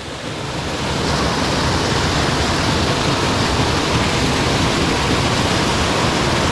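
Water gushing out of a hole in an old dam and pouring down its sloping face onto rock, heard from right inside the falling spray: a loud, steady rush that swells over the first second.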